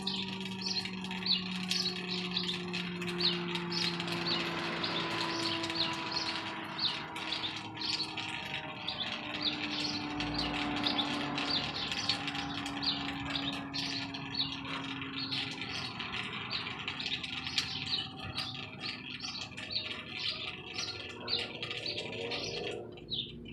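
Many small birds chirping continuously in quick, overlapping calls. Underneath, a low droning tone drifts slowly down in pitch over several seconds.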